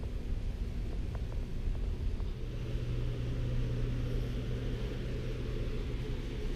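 Steady low room hum, with a few faint clicks about a second in.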